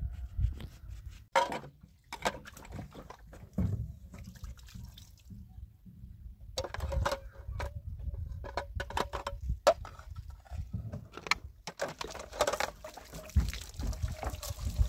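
Dishes being washed by hand in water: splashing and dripping, with scattered clatters of plastic plates, bowls and a colander knocking together.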